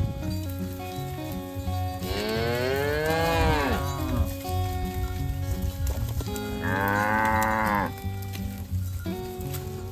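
Cattle mooing twice: a long low moo about two seconds in that rises and then falls in pitch, and a shorter, higher, steadier moo about seven seconds in. Background music with steady notes plays underneath.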